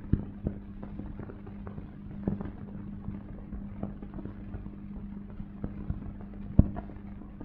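Steady low hum with scattered, irregular clicks and pops, the loudest about six and a half seconds in: the surface noise of an old film soundtrack.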